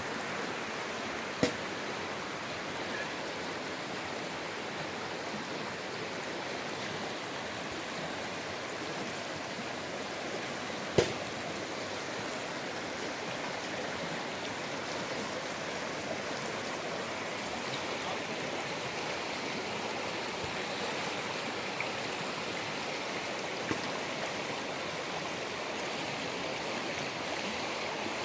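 Steady rushing of the Ganges river's flowing water, with two short sharp clicks, one about a second and a half in and one about eleven seconds in.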